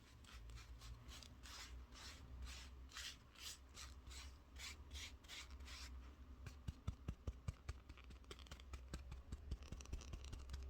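Cloth or tissue wiping against the microphone, in soft repeated swishing strokes about twice a second, giving way after about six seconds to light crackling clicks.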